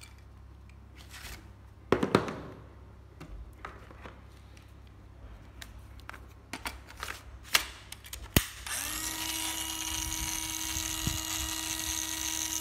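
Plastic clicks and knocks as the battery packs and drill are handled. Then a sharp click, and about two thirds in a Makita 9.6 V cordless angle drill's motor starts and runs steadily at one even pitch.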